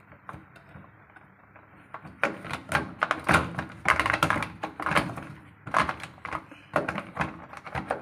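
Hard plastic clicking and knocking as a washing machine's water inlet valve is pushed and worked back into its mount in the plastic top panel by hand. There are a few light clicks at first, then a busy clatter of knocks from about two seconds in.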